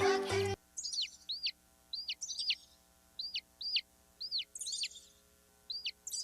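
A single baby chick peeping: about a dozen short, high peeps, each sliding downward in pitch, coming singly or in quick twos and threes with short pauses between.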